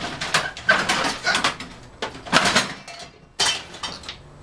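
Metal tools and odds and ends clattering and clinking as they are shoved about and picked through on a cluttered workbench: a run of irregular knocks and clinks.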